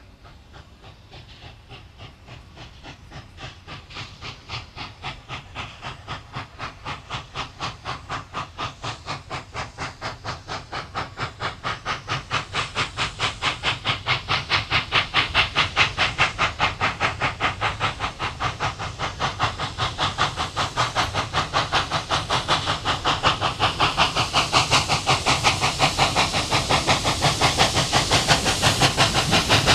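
New South Wales 59 class 2-8-2 steam locomotive 5910 working its train: sharp, regular exhaust chuffs over a steam hiss, growing steadily louder as it approaches.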